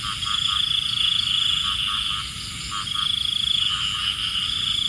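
Night chorus of frogs giving short pulsed croaks, over a steady high-pitched insect trill that breaks off briefly twice.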